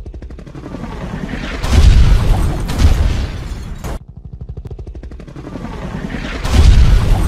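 Helicopter rotor sound effect: a fast, even chopping rhythm that swells twice into loud booms, the first about two seconds in and the second near the end.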